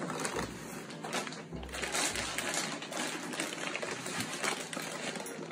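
Dense rapid clicking and rustling, with a few dull thumps in the first half.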